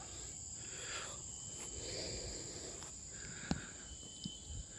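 Garden ambience with insects trilling steadily at a high pitch. Two faint clicks come about three and a half and four seconds in.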